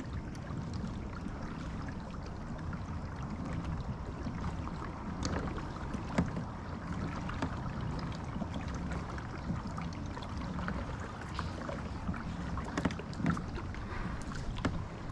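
Pedal-drive kayak moving through calm water: a steady low wash of water along the hull, with scattered small clicks and knocks.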